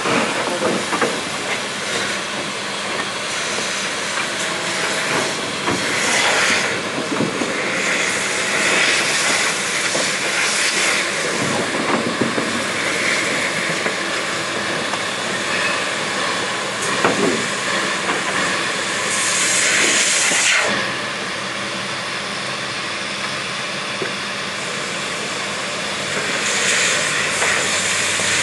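Steam hissing steadily from Durango & Silverton K-28 steam locomotive No. 473 at rest while its firebox is cleaned out into the ash pit, swelling louder a few times, with a few short metal clanks.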